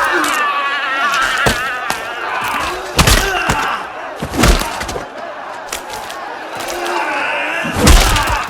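Fight sound effects: a run of punch and body-blow impacts, the heaviest about three seconds in, about four and a half seconds in and near the end, with men shouting and grunting between the blows.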